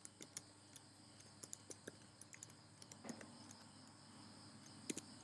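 Computer keyboard keys being tapped as a word is typed: a faint, irregular run of short clicks over a steady background hiss.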